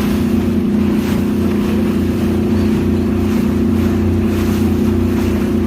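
A sightseeing cruise boat's engine running steadily, a constant low drone.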